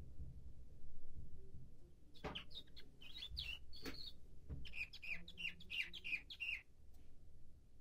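Young male nightingale-song (bülbül ötümlü) canary singing: a phrase of varied chirps starts about two seconds in and ends in a run of repeated slurred notes, about four a second, stopping shortly before the end. The bird is in its song-training period.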